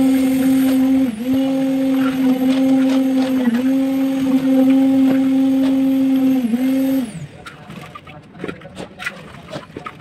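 A small motor runs with a steady hum, its pitch sagging briefly three times, then is switched off about seven seconds in and winds down. Afterwards come faint scrapes and clinks of shovels and iron pans working the concrete mix.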